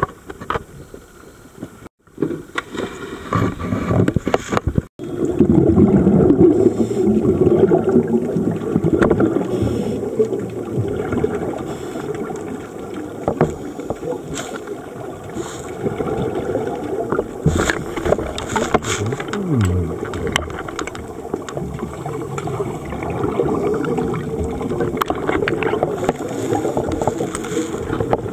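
Water churning at a boat's side, broken twice by abrupt dropouts. Then, from about five seconds in, a continuous muffled underwater rumble of scuba divers' exhaled bubbles gurgling, with scattered small clicks.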